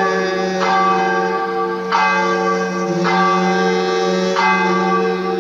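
Church-style bells ringing, a new stroke about every second and a quarter, each one ringing on until the next.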